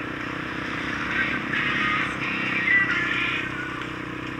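ATV engine running at a steady cruise, with gusty wind noise on the microphone.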